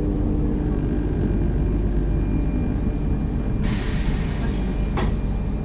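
RER B train's steady low rumble heard from inside the carriage. About three and a half seconds in comes a sharp hiss of compressed air lasting about a second and a half, ending with a click.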